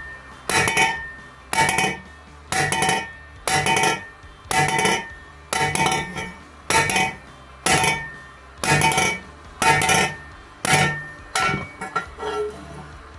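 A hammer striking a steel exhaust pipe about once a second, a dozen or so ringing metallic blows, denting it at the point where it hits a pump so the pipe can rotate into place and seal.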